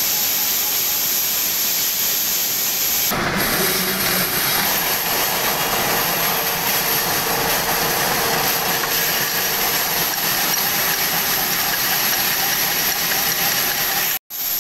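Motor-driven bolt threading machine running, its spinning die head cutting a thread onto a steel rod: a steady, loud, hissing mechanical noise, briefly broken about three seconds in.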